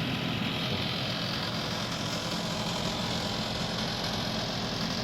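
COSORI smart air fryer toaster oven running, its convection fan making a steady, loud hum and rumble. The owner says it turned this loud and started rattling or rumbling after running a while.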